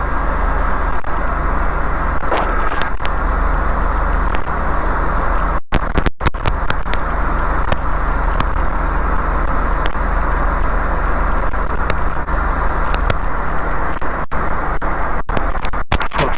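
Steady drone of a light aircraft's piston engine and propeller, heard in the cockpit with rushing wind noise. The sound cuts out briefly a few times about six seconds in and again near the end.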